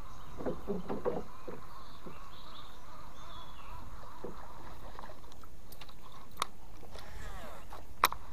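A steady hum around a small wooden boat, broken by a couple of sharp knocks against the boat, the louder one near the end.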